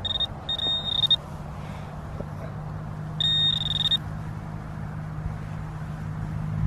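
Handheld metal detector sounding its high-pitched target tone three times: a short blip, a tone of about half a second, then a longer one about three seconds in, as it passes over buried metal. A steady low hum runs underneath.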